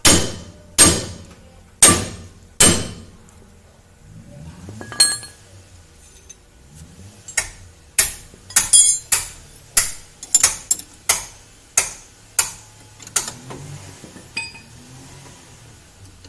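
Hammer blows on the truck's steering knuckle to drive the new ball joint's stud up into its seat: sharp metallic knocks with a ringing tail. Four hard blows come in the first three seconds; after a pause, a quicker irregular run of lighter taps follows, about two a second.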